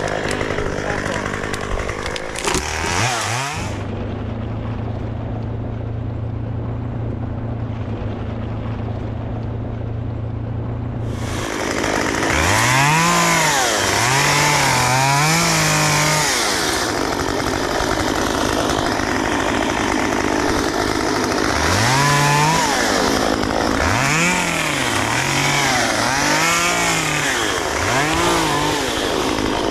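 Gas chainsaw running at speed, dropping to a steady idle about four seconds in, then revved up and down repeatedly from about twelve seconds on as it cuts.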